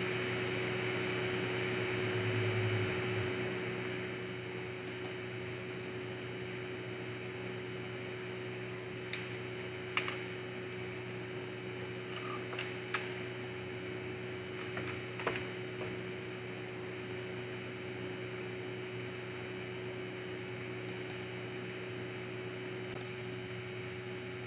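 Steady electrical hum and hiss with one constant tone, broken by a handful of faint clicks.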